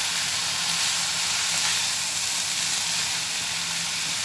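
Grated carrot, grated potato and chicken strips sizzling steadily in a frying pan while being stirred with a spatula and wooden spoon.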